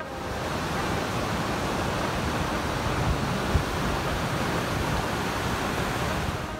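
Fast mountain creek rushing over rock through whitewater: a steady, even rush of water, with a brief low thump about halfway through.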